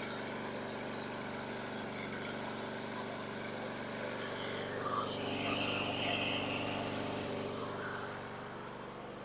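Husqvarna LC 221AH mower's 163cc 725EXI single-cylinder engine running steadily, easing off slightly near the end.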